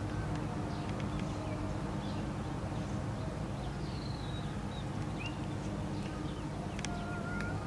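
Faint bird chirps scattered over a steady low outdoor background hum, with a short held chirp near the end.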